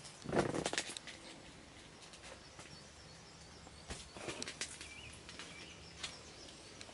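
Footsteps and rustling as someone walks with a hand-held camera: short clusters of scuffs and clicks just after the start and again around four to five seconds in, over a steady outdoor background.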